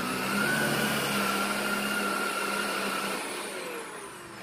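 Shark Rotator Powered Lift-Away True Pet upright vacuum (NV752) running on a rug, a steady motor whine over the rush of suction as it pulls up spread white powder. After about three seconds the whine falls in pitch and the sound fades.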